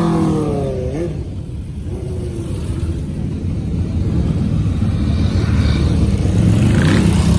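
Motorcycle engines of classic and custom bikes riding off one after another: one bike revs as it pulls past in the first second, then a low rumble of several engines builds and grows louder.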